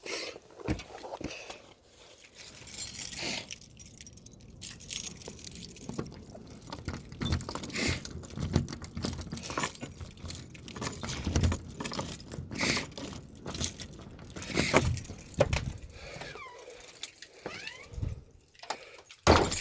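A bunch of keys jangling among irregular clicks, rattles and knocks, with one sharp loud knock near the end.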